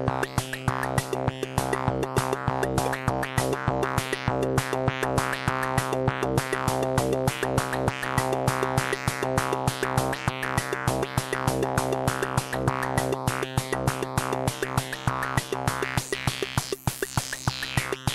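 Korg volca drum playing a fast, dense drum pattern over steady low synth tones, with an Arturia MicroFreak alongside, in a live electronic jam.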